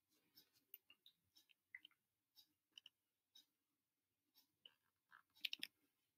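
Near silence, broken by faint, scattered small clicks and ticks, with a brief cluster of louder clicks near the end.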